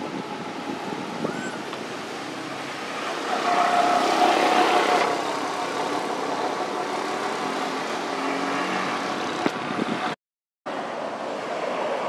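Outdoor background noise with a motor vehicle passing, loudest about three to five seconds in. The sound cuts out completely for half a second near the end.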